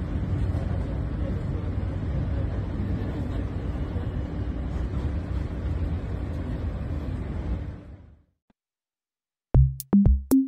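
Subway train car running: a steady low rumbling noise with a faint hum, which fades out about eight seconds in. After a short silence, electronic music with loud drum-machine beats starts near the end.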